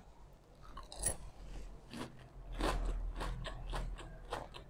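A person biting into and chewing a freshly fried breaded pork cutlet (tonkatsu), its crisp coating crunching between the teeth in a string of irregular crunches starting about a second in.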